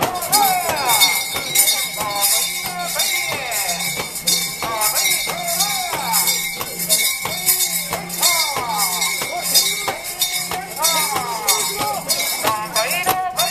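A mikoshi's metal bells and fittings jingle in a steady rhythm as it is carried, under the shouting and chanting of a crowd of bearers. A steady high tone is held through most of it and stops near the end.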